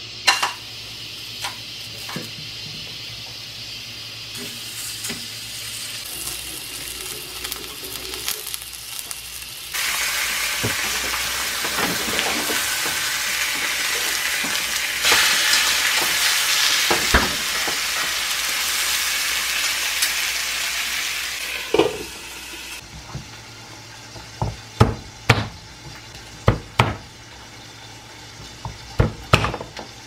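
Pork frying in a stainless steel pan on a gas stove: a steady sizzle that gets much louder partway through, with occasional clinks of tongs turning the meat. Near the end, a series of sharp knocks from a chef's knife on a plastic cutting board.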